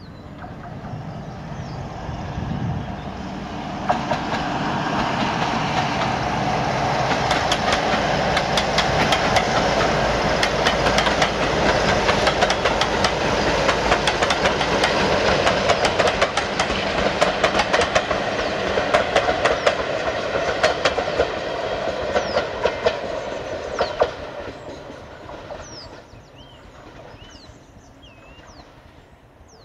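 BR Class 47 diesel-electric locomotive, with its Sulzer twin-bank twelve-cylinder engine, approaching and passing with a train of coaches. Its engine drone builds, then wheels click rapidly over rail joints for about twenty seconds before the sound dies away. Birds chirp faintly near the end.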